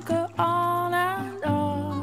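Background music: a slow melody of held, wavering notes over a steady low tone.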